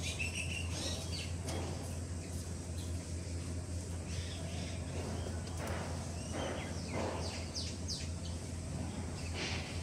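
Birds chirping and calling in the background over a steady low hum, with a few short scattered noises.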